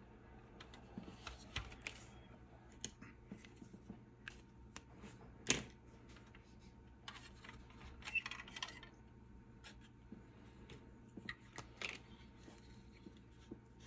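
Light, scattered clicks and taps of a plastic model car body and chassis being handled and set down on paper, with one sharper tap about five and a half seconds in.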